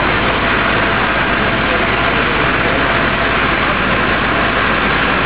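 Steady, unbroken noise of a heavy engine running, with a hiss over it.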